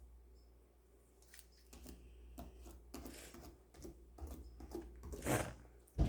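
Irregular soft clicks and sticky squelches of slime being mixed by hand in a bowl, with a sharp knock near the end as the loudest sound.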